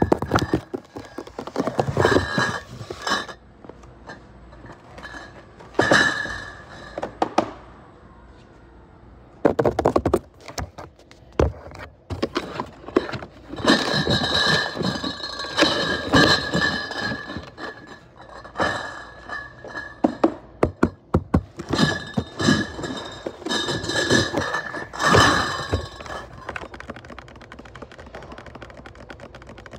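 Cardboard 24-bottle cases of Stella Artois being lifted, set down and slid into place while a pallet is stacked: repeated thunks and cardboard scraping in bursts, with quieter stretches between.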